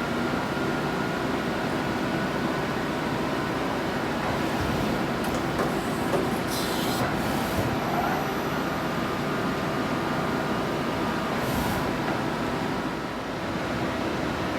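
Steady machinery hum with several steady tones, as of machines running in a machine shop. Short hissing bursts come a few times, around the middle and again near the end.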